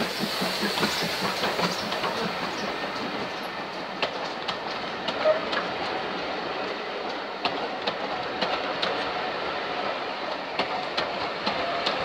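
Steam-hauled passenger coaches rolling past close by, their wheels clicking and clattering over the rail joints over a steady rumble. A hiss from the GWR small prairie tank locomotive fades out in the first couple of seconds.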